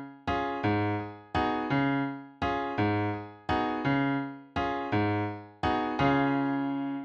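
Piano accompaniment of a choral song, with no voices. The piano plays a slow, repeating pattern of chords struck in pairs about once a second, and each chord is left to ring and fade.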